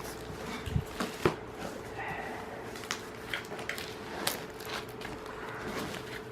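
Cardboard box and packing being handled: scattered taps, knocks and light rustling over a faint steady hum.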